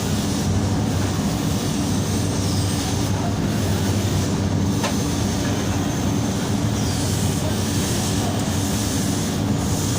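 A steady low mechanical hum, like a motor or engine running, with one faint click about five seconds in.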